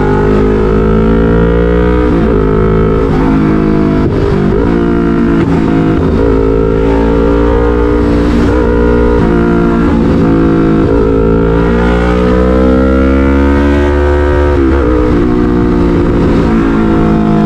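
Yamaha MT-03 parallel-twin engine running loud through an SC-Project full exhaust at highway speed. Its note climbs slowly under throttle several times, each climb broken by a brief dip in pitch.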